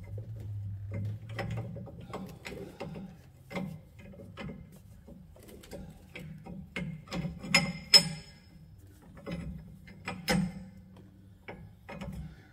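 Metal U-bolts and a mounting bracket clinking and knocking against the front axle as they are fitted into place by hand, in irregular clicks with the sharpest knocks about eight and ten seconds in.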